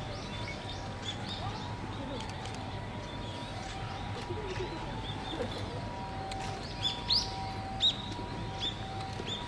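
Small birds chirping: short, high chirps repeated again and again, with a few louder ones about seven to eight seconds in, over a steady low background hum.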